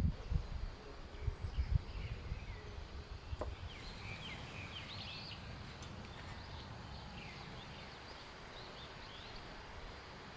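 Birds chirping in a short flurry of quick calls about four to five seconds in, over a steady outdoor background hiss. Low rumbling bumps come in the first two seconds.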